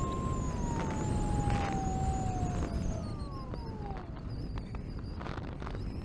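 Brushless electric motor and propeller of an RC flying wing whining, the pitch falling slowly as the motor slows, over heavy wind rumble on the onboard camera's microphone. About three seconds in, a second, shorter whine falls more quickly.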